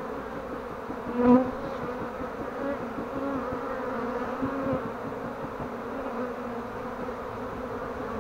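A swarm of honeybees in the air, buzzing in a steady hum, with one louder buzz about a second in as a bee flies close.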